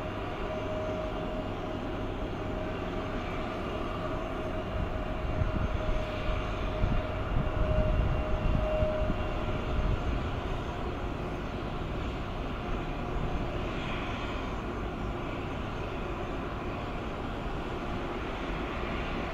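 Jet aircraft engine noise: a steady rumble with a thin whine that fades out about halfway, the rumble swelling louder for a few seconds in the middle.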